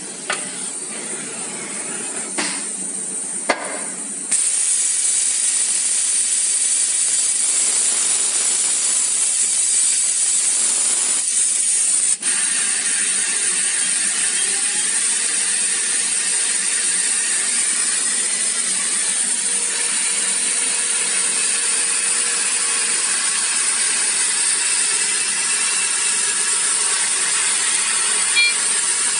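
CNC engraving and milling machine with an automatic tool changer: a few sharp clicks and clunks as it swaps tools at the rack, then the spindle starts suddenly about four seconds in and runs with a steady high-pitched hiss. Near the end it is milling a brass die.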